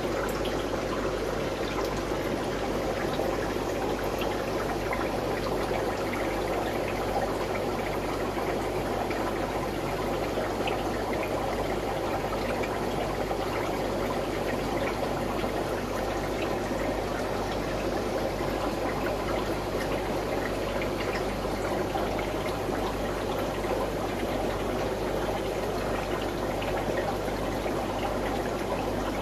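Steady running and trickling water of the aquarium's water circulation, over a low steady hum.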